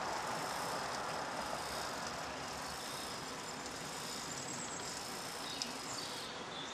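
Windscreen wiper motor and linkage running on the second speed, the wipers sweeping back and forth with a steady whir, the freshly reassembled mechanism working.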